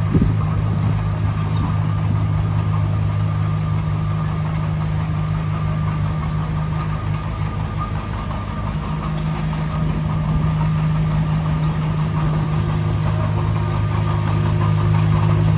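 Heavy construction machine's diesel engine running steadily, a low even hum that grows slightly louder in the second half.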